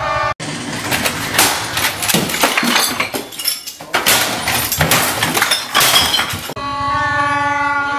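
Glass and household objects crashing and breaking as they are struck with a stick: a dense run of hits and shattering lasting about six seconds. Just before it starts and after it cuts off, plastic toy horns blow in steady held tones.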